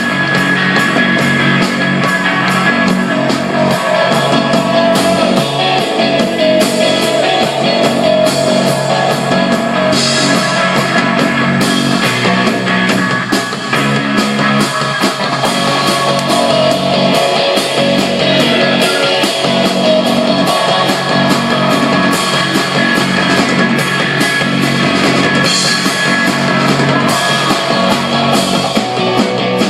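A rock band playing live: a loud wall of distorted electric guitar over bass, with a fast, steady drum beat.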